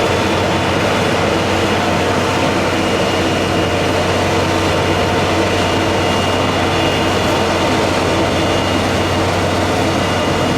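Steady running noise of a heavy vehicle's engine, even and unbroken throughout.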